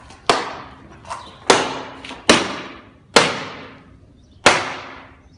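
Baton blows on the hard plastic back protector of a riot-control armour suit: six sharp whacks about a second apart, the second one lighter, each with a short ringing decay.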